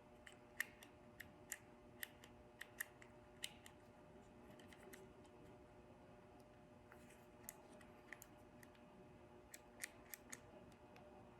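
Faint, sharp little clicks and taps of small plastic parts being handled as the hazard switch's indicator bulb holder is fitted. There are about eight clicks in the first few seconds, then a few more scattered later, over a low steady hum.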